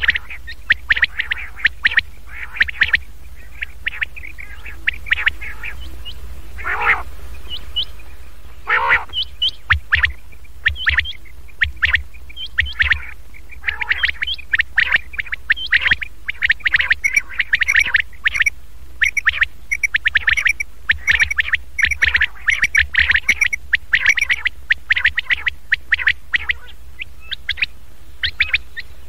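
Recorded common quail calls played as a lure: quick runs of short, high call notes repeating over and over, broken by two longer falling notes about a third of the way in. A steady low hum runs underneath.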